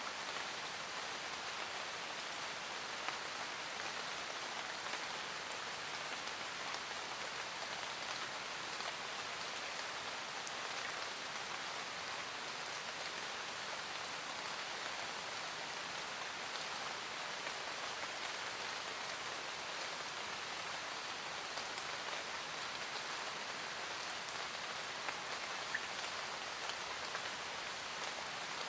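Steady rain falling in a forest, an even patter with scattered individual drops ticking.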